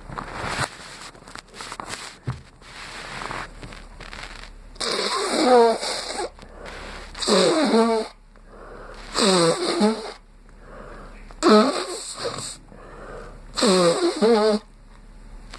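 A person with a cold sneezing five times in a row, each sneeze a loud voiced burst about a second long, spaced roughly two seconds apart. Quieter breathy noises come before them.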